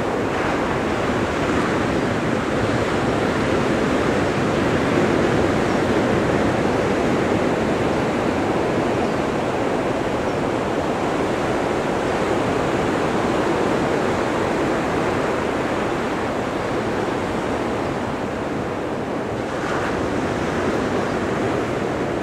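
Ocean surf on a beach: small waves breaking and washing up the shore, a steady rushing sound that swells and eases only slightly.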